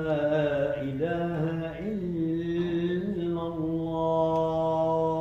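A man's voice chanting the adhan, the Muslim call to prayer, in long drawn-out notes that bend and turn in pitch.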